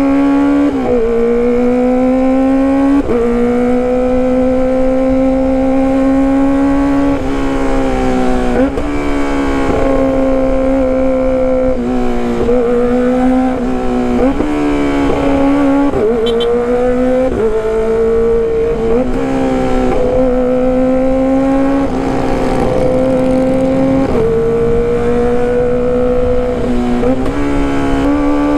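Kawasaki ZX-25R's 250 cc inline-four engine running at high revs through a loud aftermarket exhaust while riding. It holds a steady, high-pitched note that repeatedly dips briefly and climbs back as the throttle closes and reopens.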